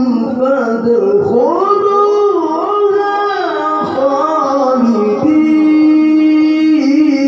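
A man's voice reciting the Qur'an in the melodic tilawah style, amplified through a handheld microphone. The line slides up about a second in and holds with wavering ornamental turns, then settles on a long steady note from about five seconds in.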